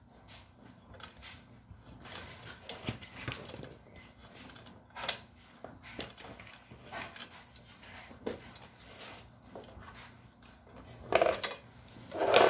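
Allen key and wrench clicking and clinking against a steel bolt and nut as it is tightened on a metal buggy frame, with a sharper click about five seconds in. Louder knocks of the frame being handled near the end.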